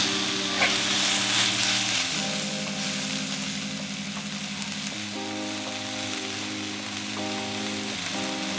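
Scrambled eggs, meat and vegetables sizzling in a hot wok as they are stirred with a spatula, with an even hiss throughout.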